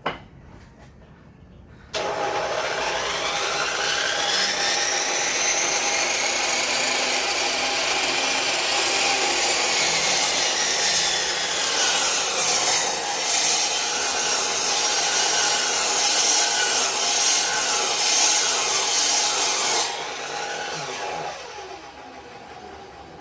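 Japan-made 100–110 V electric miter saw switched on about two seconds in, its motor whine rising as the blade spins up, then cutting through a piece of fairly hard wood. Near the end it is switched off and the whine falls as the blade winds down.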